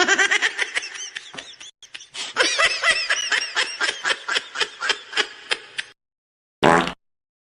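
Laughter: a long run of quick 'ha'-like syllables, each rising and falling in pitch, about five a second, that stops abruptly about six seconds in, followed by one short separate sound near the end.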